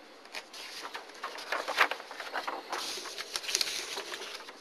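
Sheets of paper rustling and sliding as one sheet is laid over another, full of small crackles, with the loudest crackle about two seconds in.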